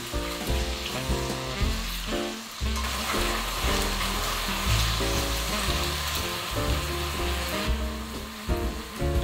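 Udon noodles sizzling in leftover sukiyaki sauce in a cast-iron skillet as they are stirred with chopsticks. The sizzle grows louder about three seconds in and eases off near the end, over background music.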